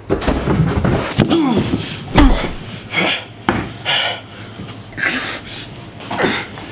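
Fistfight: thuds of blows and a body hitting a wooden floor, mixed with grunts and panting. The heaviest thud comes about two seconds in.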